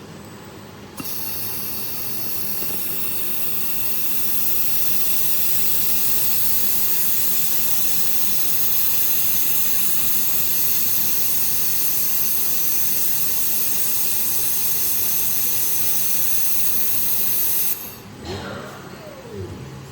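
2 kW fiber laser welding machine running a weld: a loud, steady, high hiss that starts abruptly about a second in and cuts off suddenly near the end. A brief whine that rises and falls follows it.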